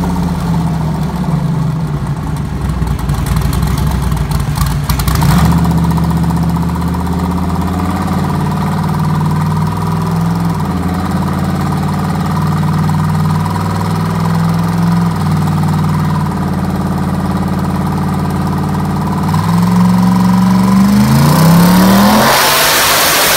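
Twin-turbocharged 408 cubic-inch LS3 V8 running on a chassis dyno, holding steady speeds with a few sudden changes in pitch. In the last three seconds it rises quickly in pitch under full throttle with a loud rising turbo hiss, then cuts off abruptly at the end of the pull.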